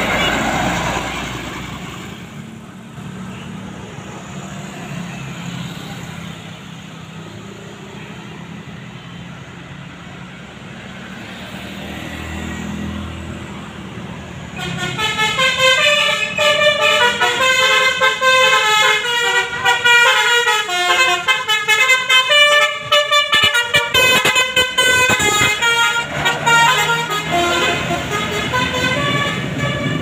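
A bus passes close by with its engine running, then traffic rumble. About halfway in, a bus's Basuri telolet multi-tone horn starts playing a fast melody of short stepped notes, continuing to the end.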